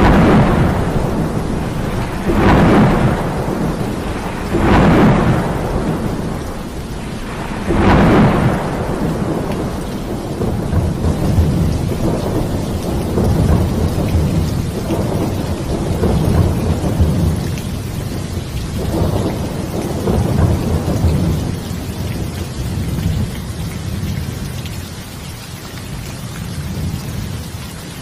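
Heavy rain falling steadily under a thunderstorm. Four loud thunder peals come in the first eight seconds, then softer rolling rumbles that die down near the end.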